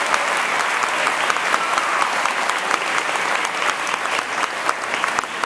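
Audience applauding a singer at the end of his song, many hands clapping steadily, thinning slightly near the end.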